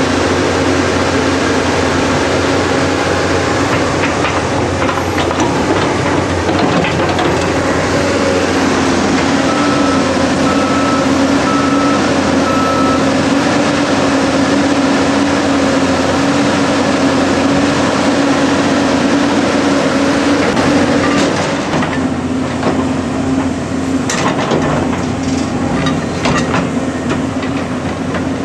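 Tracked excavator's diesel engine and hydraulics running steadily with a constant drone. In the last several seconds there are knocks and clatter as the bucket digs and scrapes through rocky dirt.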